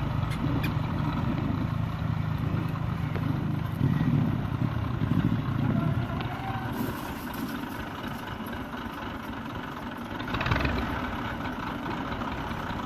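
Tractor diesel engine running as the tractor moves slowly, a steady low note that is strongest in the first half and briefly louder again about ten seconds in.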